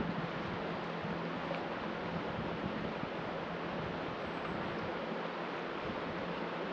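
Steady rushing of river water, an even wash with no breaks.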